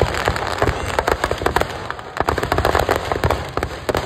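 Firecrackers going off in a dense, irregular string of sharp cracks and pops, many a second.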